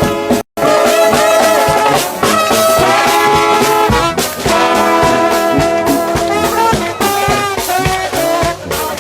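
Trombone-led gospel shout band playing loud brass music: full held chords over a steady beat. The sound drops out briefly about half a second in.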